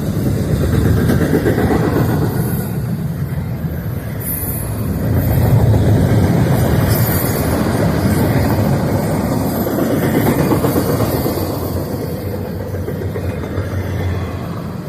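Freight train rolling past, a steady rumble of cars on the rails that swells and eases.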